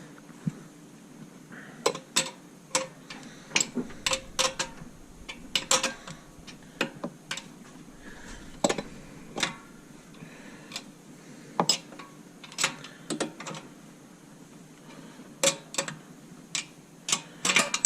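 Irregular metallic clicks and clinks of hand tools working bolts on the metal mud-motor kit, sometimes a few in quick succession, over a faint steady hum.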